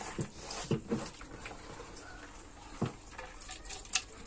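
Faint, scattered clicks and soft knocks of a hand stirring soaked urad dal in a steel mixer-grinder jar.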